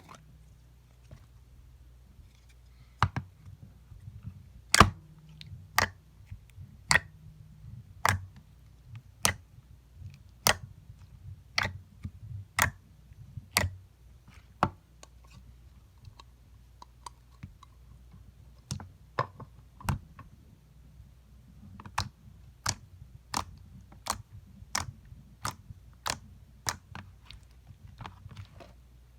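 Slime being pressed and squeezed by hand, giving sharp clicking pops about once a second, with a pause in the middle and quicker clicks near the end.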